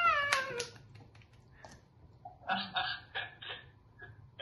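A high-pitched cheer tailing off on a long falling note, with a few hand claps. About two and a half seconds in comes a short burst of laughter, four quick breathy syllables.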